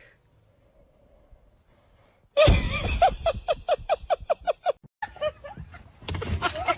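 After a quiet start, a sudden breathy gasp-like vocal sound, followed by a quick run of about eight short pitched bursts, then a few more short vocal sounds.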